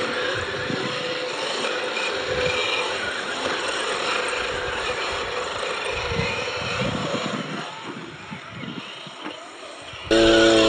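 Electric RC cars running, their motors whining up and down in pitch as they speed up and slow, over a haze of tyre and running noise. Near the end, loud music cuts in suddenly.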